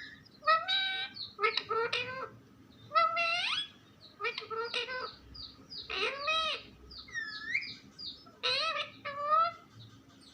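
Pet parrot vocalizing in a string of short, separate phrases with sliding pitch, about one a second, the kind of talking-parrot chatter that mimics words.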